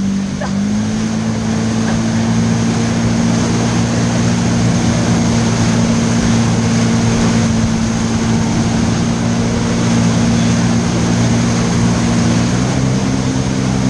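Jet ski engine running steadily at speed while towing a tube, over the rush of its wake and spray. The engine note rises a little about half a second in and again near the end.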